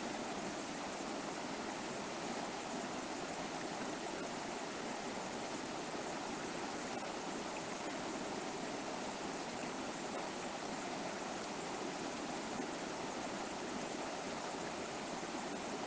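River water flowing and rushing over rocks, a steady, unbroken babble.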